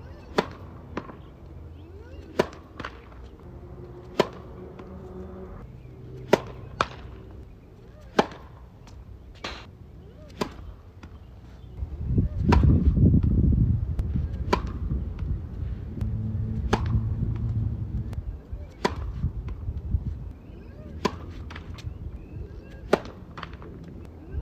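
Tennis balls being struck by a racket and bouncing on a hard court: a string of sharp pops and thwacks at uneven intervals. A low rumble swells up for several seconds in the middle.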